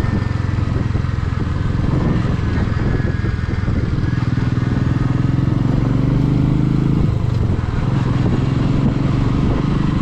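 Motorcycle engine running steadily under way. Its pitch climbs slightly for a few seconds, then drops back about seven seconds in.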